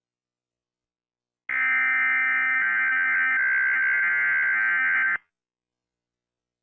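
Emergency Alert System-style electronic alert tone: a steady, high-pitched tone that starts about a second and a half in, holds for nearly four seconds and cuts off suddenly.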